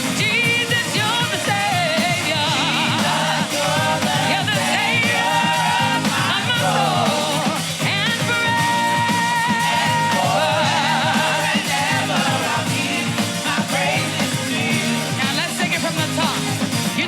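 Live contemporary gospel praise-and-worship music: voices singing with a wavering vibrato over a steady, full band backing.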